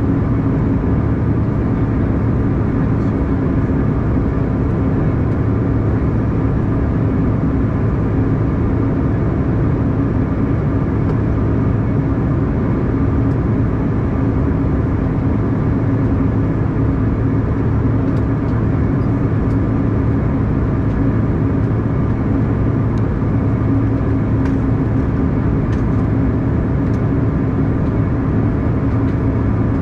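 Steady drone inside the cabin of an Embraer E175 regional jet: its twin CF34 turbofans and rushing air, with a couple of constant low hums under the even noise.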